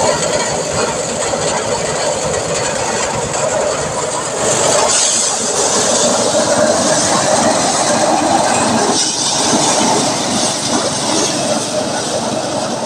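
Engine-driven machinery running steadily and loudly, with a continuous rattling clatter.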